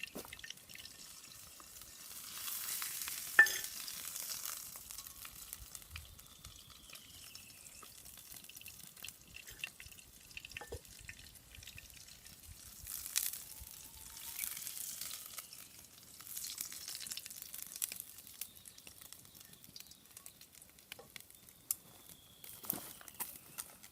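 Food sizzling in a hot cast-iron skillet over a wood fire. The sizzle rises in surges a couple of seconds long, three times, with scattered clicks and one sharp click in the first surge.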